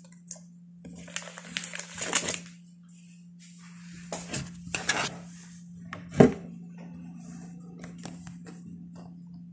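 Clicks, rustling and clattering knocks of objects being handled close to the microphone, the loudest a sharp knock about six seconds in, over a steady low hum.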